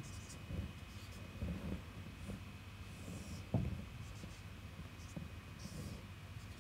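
Marker pen scratching and squeaking on a whiteboard in short strokes as lines and arrows are drawn, faint, with a soft thump about three and a half seconds in.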